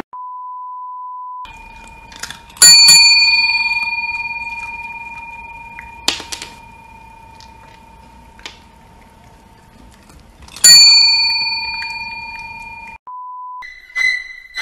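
A chrome desk service bell is struck twice, about eight seconds apart, with a few light taps between. Each strike rings out bright and clear and fades slowly over several seconds. Before the first strike a steady test-tone beep sounds for about a second and a half, and a short beep comes again near the end.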